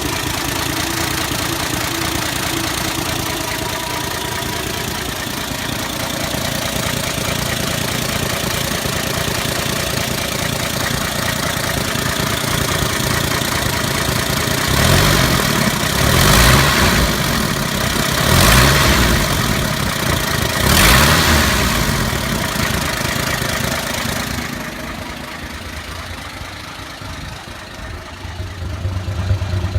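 Ford 300 inline-six engine running with a knocking noise, which the owner takes for spark knock or some sort of pre-ignition after a Duraspark II ignition conversion. It is revved up three times around the middle, then drops back to a quieter idle.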